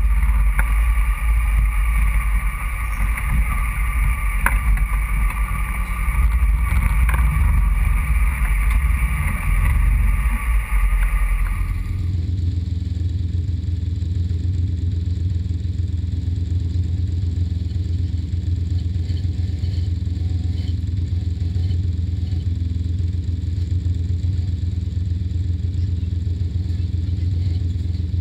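Polaris RZR side-by-side's engine running as it works over a rocky trail, with a few knocks. About twelve seconds in the sound changes suddenly to a steady low idle.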